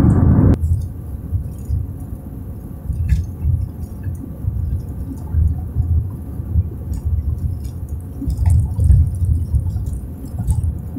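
Low, uneven rumble of a car driving on an asphalt highway, heard from inside the cabin, with a few faint clicks and rattles. A louder rush cuts off abruptly about half a second in.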